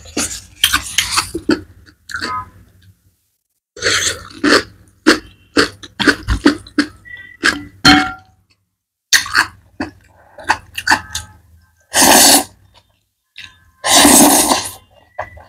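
Close-miked eating of saucy black noodles: wet chewing and lip smacks in short bursts, then two long, loud slurps of noodles, one about three-quarters through and one near the end.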